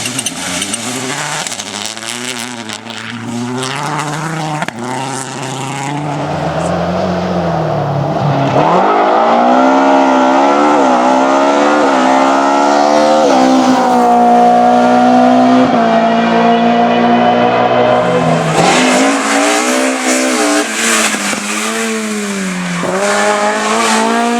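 Rally car engine driven hard on a stage, its pitch repeatedly climbing under acceleration and dropping at each gear change or lift, getting louder about a third of the way in. Bursts of crackle and tyre noise come in the later part.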